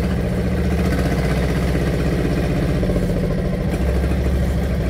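An engine running steadily, with a dense low rumble of rapid firing pulses.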